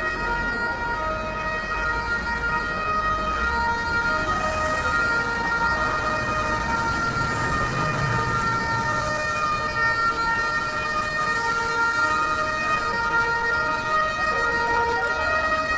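Spanish ambulance siren sounding continuously in held, level tones, not a rising and falling wail, some pitches switching on and off every second or so, over a low rumble.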